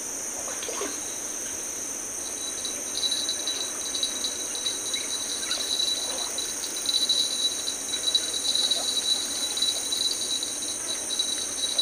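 Insect chorus: a high, rapidly pulsing trill over a steady higher hiss, the trill growing stronger from about three seconds in.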